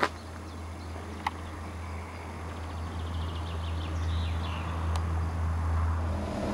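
Outdoor ambience: a steady low rumble that slowly grows louder, with faint bird chirps and a sharp click at the start.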